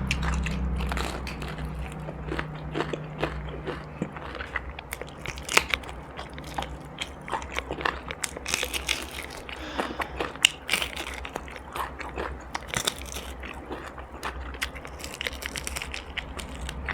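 Close-miked biting and chewing of crunchy food, crispy fried chicken or cucumber, with irregular crunches throughout over a faint low hum.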